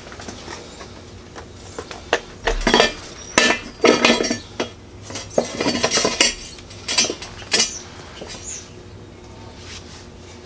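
Irregular metallic clanks and clinks of steel frame tubing, axle and go-kart wheel being handled and fitted together, busiest through the middle.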